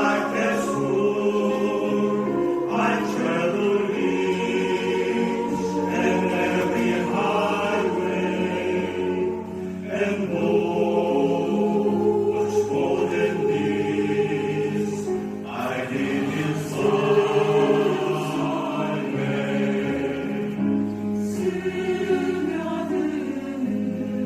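A choir singing in harmony with instrumental accompaniment, holding chords that shift every second or two.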